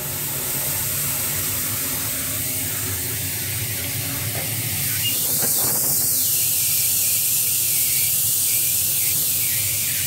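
The steam blower on a wood-fired fire-tube boiler has been opened and is hissing steadily as steam jets up the stack, forcing draft through the firebox. It starts as the valve opens and gets a little louder about five seconds in.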